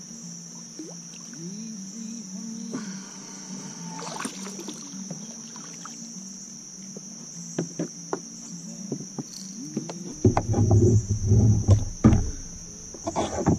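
Insects droning steadily at a high pitch, with a song playing underneath. About ten seconds in, a couple of seconds of loud low rumbling and knocks.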